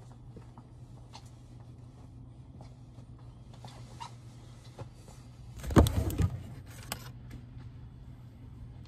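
Shop room tone: a steady low hum with faint scattered clicks, broken about six seconds in by a brief loud knocking rustle close to the microphone.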